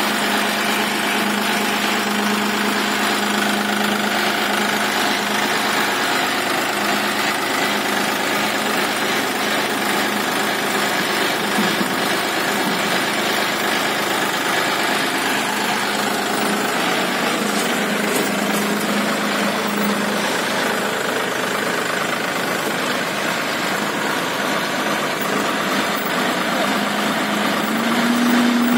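John Deere tractor's diesel engine idling steadily, its revs rising near the end.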